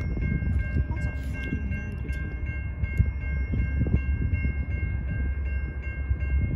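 Railroad grade-crossing warning bell ringing with rapid, even strikes, over a steady low rumble.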